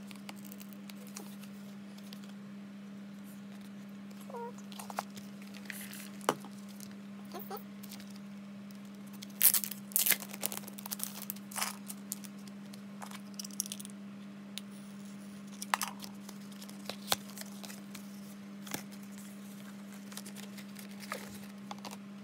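Hands handling merchandise packaging: scattered rustles, taps and crinkles of card and plastic, with a louder flurry of crinkling about ten seconds in as a hand goes into a bubble-wrap bag. A steady low hum runs underneath.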